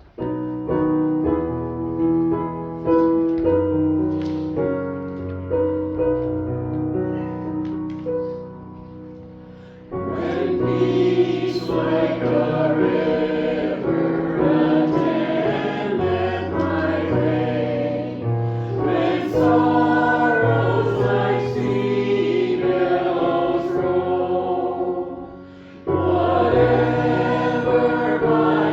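Church choir singing with piano accompaniment, after a piano introduction of about ten seconds; the voices come in about ten seconds in and pause briefly near the end.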